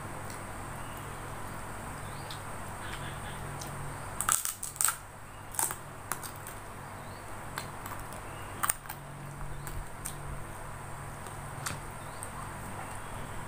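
Close-up eating sounds of a meal of rice and gudeg eaten by hand: sharp mouth and chewing clicks, a quick cluster about four seconds in and a single loud one near nine seconds, over a steady low hum.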